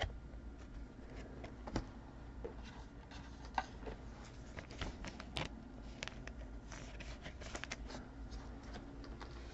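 Faint, scattered ticks and rustles of trading cards being handled and sorted.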